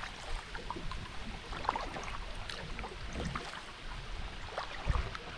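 Kayak paddling: small splashes and drips of water from the paddle blades, with water lapping at the hull, and a soft low bump near the end.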